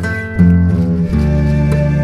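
Background music: plucked acoustic guitar over low sustained notes.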